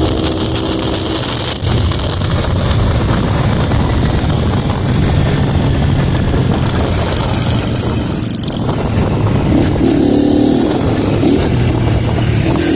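Honda Pop 110i's small single-cylinder four-stroke engine running under way, under a steady rush of wind and road noise.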